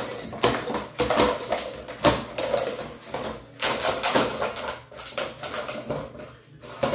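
Australian shepherd puppy pawing and nosing a plastic ball-track toy across a hardwood floor: a run of irregular plastic clatters and knocks, with the ball rattling in the track.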